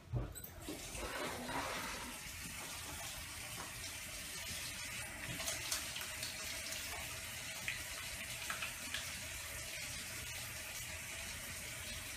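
Bathroom sink tap running steadily while hands are washed under the stream, water splashing into the basin. A short knock right at the start.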